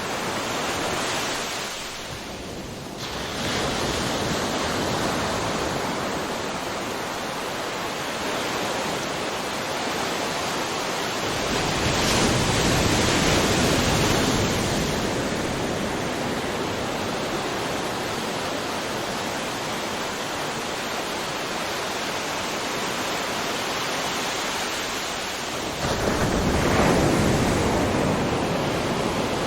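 Ocean surf: a steady rush of breaking waves, with two louder waves crashing, about twelve seconds in and again near the end.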